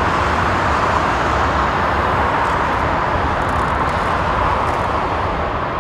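Steady jet engine noise from taxiing airliners: an even rushing sound with a low rumble beneath.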